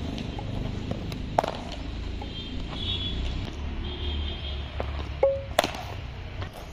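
Cricket bat striking the ball with a sharp knock about a second and a half in, and again, louder, near the end as the batsman plays a shot, over a steady low rumble.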